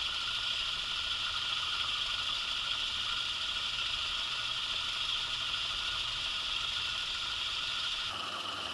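Belt-driven 1920s IXL lathe running steadily, driven by its small single-phase motor through a countershaft. The sound changes abruptly near the end, where the low hum drops away.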